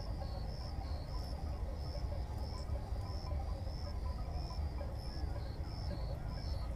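Insects chirping steadily: short high chirps about three a second, alternating between two slightly different pitches, over a low steady rumble.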